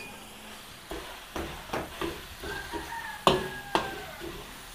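Spatula stirring shredded chicken and ground pork frying in a pan, with about half a dozen knocks and scrapes against the pan.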